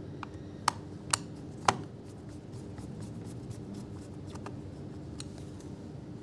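Three sharp clicks within about a second, then a few fainter light ticks, over a steady low hum.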